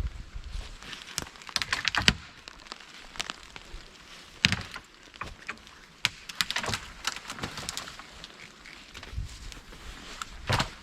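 Dry twigs and leaves crunching and snapping in irregular clusters of sharp cracks, the loudest a little after one second, about four and a half seconds and near the end.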